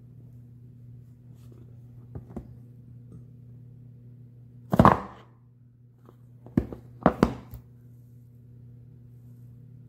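Cardboard box handled on a hard countertop: a couple of light taps, a louder brief scuffing sound about five seconds in, then a quick cluster of knocks as the box is set down flat, over a steady low hum.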